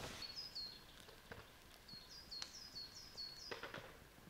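A small bird calling faintly in quick runs of short, high chirps, each dropping in pitch. A few faint clicks sound among them.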